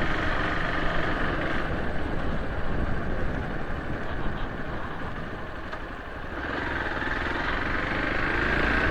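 A vehicle's engine running with road and wind noise while riding. The sound eases off about two-thirds of the way through, then builds again near the end.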